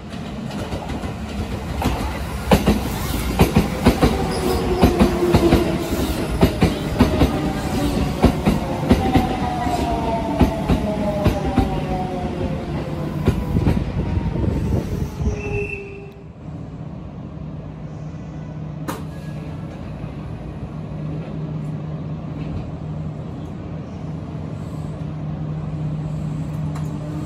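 Shin-Keisei 8800-series electric train running into the station: wheels clicking over rail joints and a motor whine falling in pitch as it slows. About 16 seconds in the sound drops suddenly to a steady low hum from the train standing at the platform. Right at the end a whine rising in pitch begins as it starts off.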